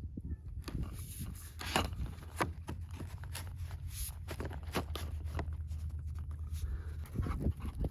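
PVC electrical conduit being slid along the wire and handled as the pieces are fitted together: an irregular string of scrapes and light knocks over a low steady hum.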